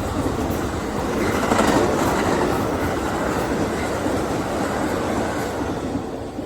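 Amtrak passenger cars rolling past at speed, wheels clacking over the rail joints. The sound swells about a second and a half in and starts to fade near the end.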